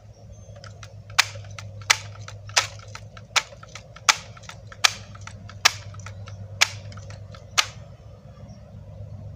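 A Barra 1866 lever-action BB rifle, held muzzle-up and worked by hand to get the BBs to roll into the loading port, gives about nine sharp metallic clicks, one every second or less, with fainter ticks between them.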